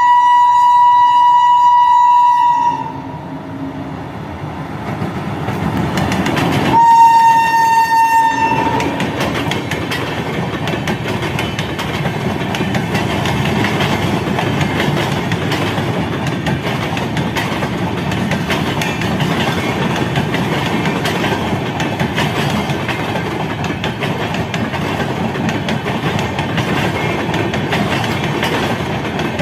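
Indian Railways WAP-7 electric locomotive sounding its shrill air horn twice as it approaches: a blast of nearly three seconds, then a shorter, louder one about seven seconds in. The passing train's wheels then rumble and clatter steadily on the track.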